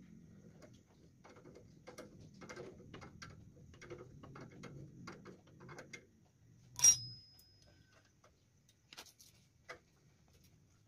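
Small metal clicks and knocks of hand tools and wheel hardware while a go-kart rear wheel is fitted to its hub, then a sharp metal clank about seven seconds in that rings with a high tone for about a second.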